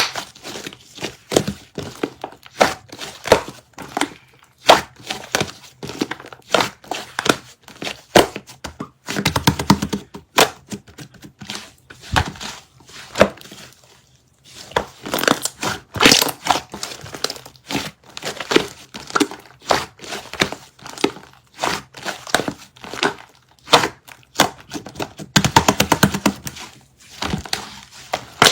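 Sticky slime being squished, folded and stretched by hand, giving a steady stream of irregular sharp clicks and pops, with denser crackling runs about nine seconds in and again near the end.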